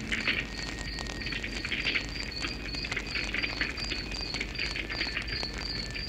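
Campfire crackling with many small sharp pops, over crickets chirping in a steady, rapid pulse.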